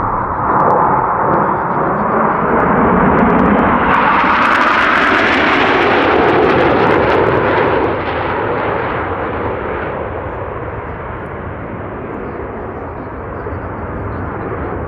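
Jet noise from a formation of Northrop F-5E Tiger II fighters flying past. It swells to its loudest about four seconds in and eases off after about eight seconds.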